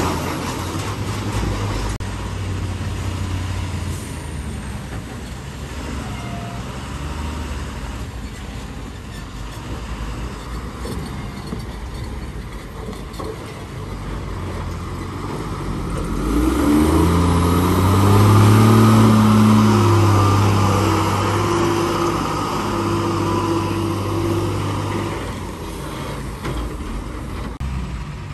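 Diesel engines of heavy Tata tipper trucks labouring slowly over rough, rutted ground. About two-thirds of the way through, the nearest truck's engine revs up, its pitch rising, and becomes the loudest sound before easing off again.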